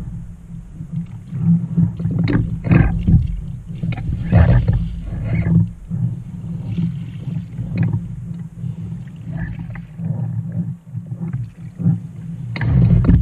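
Kayak paddle strokes splashing into the water on alternate sides, over a steady low rumble of wind on the microphone. The strokes come irregularly and are strongest about a second before the end.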